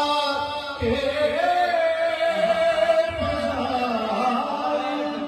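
A man singing a devotional Urdu song into a microphone, holding long, wavering melodic notes with slow rises and falls in pitch.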